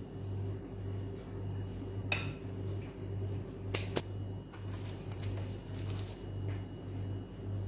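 Stainless steel tart rings knocking on a baking tray: a few sharp clicks, one about two seconds in ringing briefly. A steady low hum pulses underneath.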